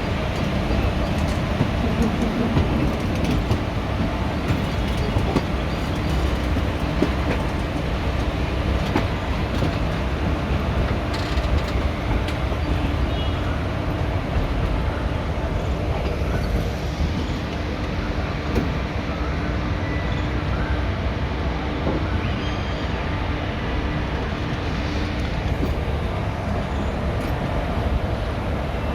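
ICF passenger coach running along the track, heard from a window seat inside the coach: a steady rumble of wheels on rail with occasional clicks.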